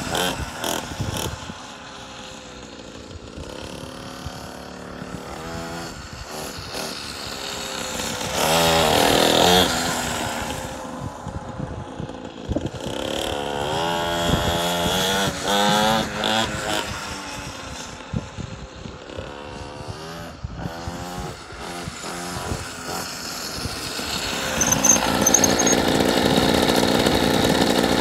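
Small mini dirt bike engine revving up and down as the bike rides around, its pitch repeatedly rising and falling, loudest about eight to ten seconds in and again around fifteen seconds. Near the end the bike comes up close and runs steadily.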